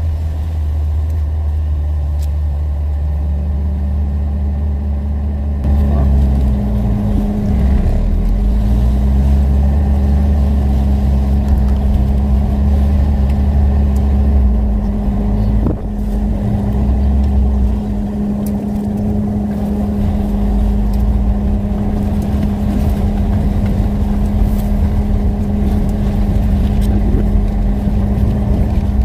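Talbot Talisman motorhome driving, its engine and road noise running steadily; the engine note rises and falls a few times partway through as the revs change.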